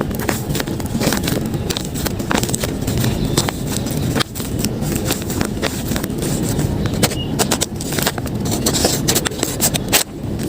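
Paper being handled: irregular crinkling and rustling clicks over a steady low background rumble.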